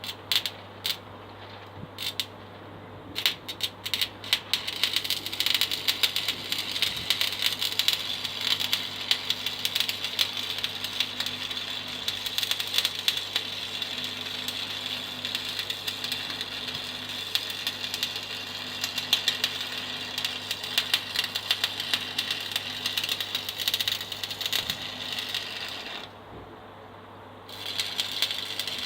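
Stick (arc) welding: the electrode's arc crackles and sputters in short bursts as it is struck, then crackles steadily for about twenty seconds, breaks off briefly near the end and is struck again. The welder is set a little too high and the electrodes were not warmed, giving a messy weld. A steady low hum runs underneath.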